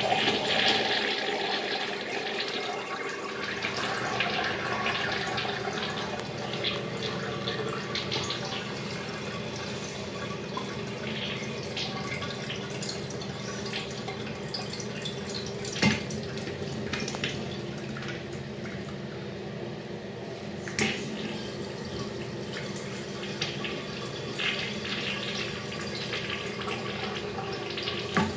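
Urinal flushing: water runs steadily into the bowl and down the drain, loudest at the start and then even. A couple of short clicks come partway through.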